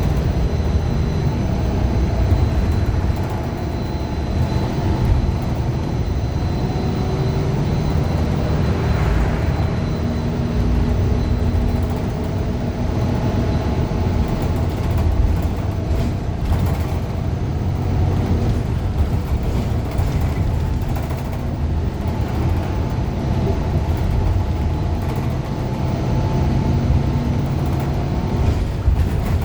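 Cabin noise of a 2015 Gillig Low Floor CNG transit bus underway: its Cummins Westport ISL G engine and drivetrain rumble steadily, with engine tones shifting in pitch as it drives. A faint high whine fades out about ten seconds in. The bus's Allison B400R transmission is one that the uploader calls messed up.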